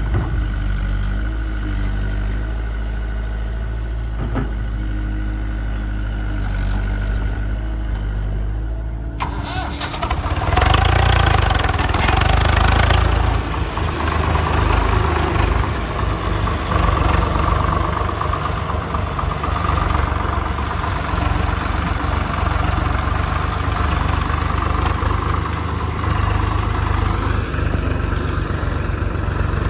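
Heavy diesel engines of a backhoe loader and tractor running: a steady low idle, then about nine seconds in a sudden, louder stretch of engine noise with revving that goes on.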